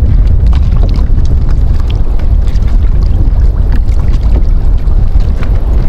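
Steady low rumble of wind and water around a small outrigger canoe, with scattered light splashes and ticks as a wet gill net is hauled over the side into the boat.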